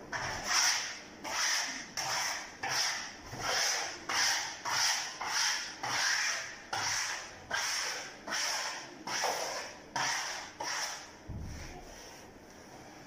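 A scouring sponge pad scrubbed hard back and forth over ceiling wallpaper, a rhythmic rasping stroke about once or twice a second, which stops near the end.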